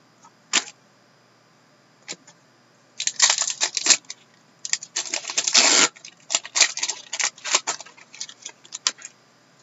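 Hockey card packs handled: the wrappers crinkle and crackle in bursts, the longest a little past halfway, with scattered sharp clicks of packs and cards knocking together.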